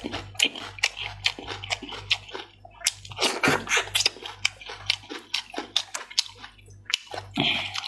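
Close-up wet chewing, sucking and lip-smacking while eating sauced chicken heads: a dense run of short wet clicks and squelches.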